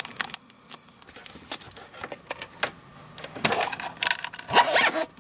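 Handling sounds: a small plastic zip bag of rubber nose pads crinkling and clicking between the fingers, then a denser rustle and rub as a nylon-covered hard sunglasses case is picked up and turned over, about three and a half seconds in.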